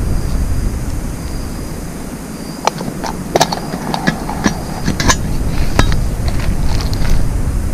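Low rumbling handling noise from gloves and clothing rubbing near the microphone, with a run of irregular sharp clicks and ticks through the middle from the fish slingshot's spinning reel being handled as the line is wound back in.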